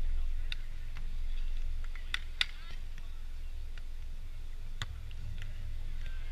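Low rumble of wind on the microphone, with a few sharp smacks of hands hitting a beach volleyball during a rally. The loudest smack comes about two and a half seconds in.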